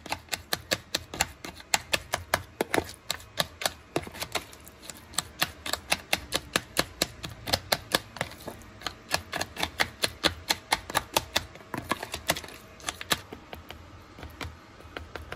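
A metal utensil rapidly clicking and tapping against a dish while wet cat food is cut and divided into portions, about four taps a second, stopping about 13 seconds in. Faint music comes in near the end.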